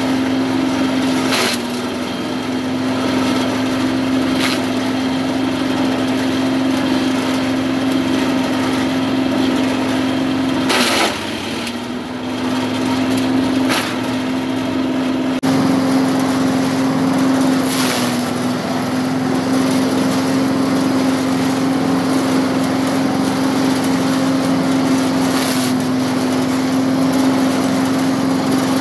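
Small gasoline engine running steadily at a fixed speed, driving a livestock-feed chopper. A few short crackling bursts cut across it, and the engine note sags briefly at the loudest one, about eleven seconds in.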